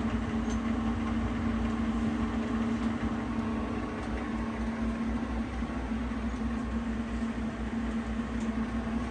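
Pinacho SP250 tool-room lathe running with its lead screw engaged and turning: a steady machine hum with one strong, unchanging tone.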